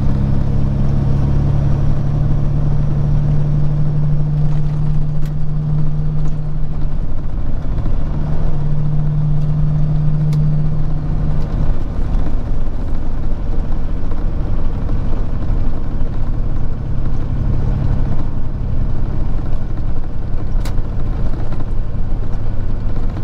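Peterbilt 379 semi-truck driving at road speed, heard from inside the cab: a steady low engine drone over road rumble, the drone weakening about halfway through.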